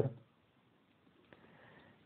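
Near silence: room tone after a man's word trails off, with one faint click a little over a second in.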